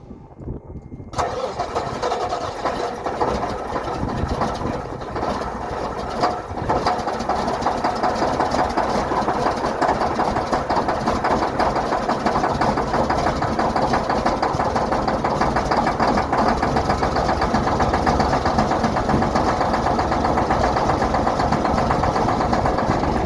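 1987 Mack dump truck's diesel engine running just after a hard cold start, chugging. The sound drops out briefly in the first second, then picks up, grows louder over the next several seconds and settles into a steady chugging run.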